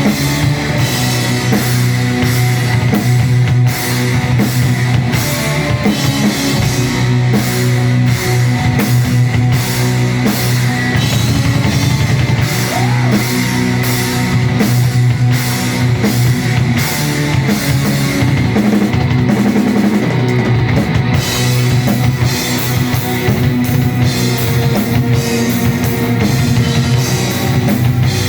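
Live heavy metal band playing an instrumental passage: distorted electric guitars, bass and a pounding drum kit, loud and steady throughout.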